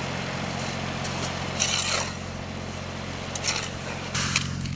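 Steel shovels scraping and digging into a pile of damp sand a few times as sandbags are filled, over the steady low hum of an idling engine.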